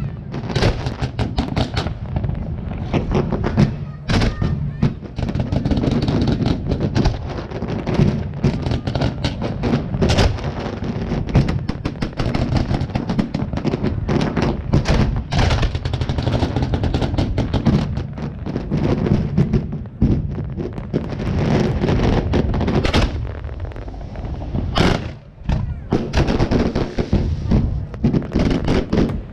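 Fireworks display: a dense, continuous barrage of shells and multi-shot cakes firing and bursting, many sharp bangs a second with no pause, and a brief lull about 25 seconds in.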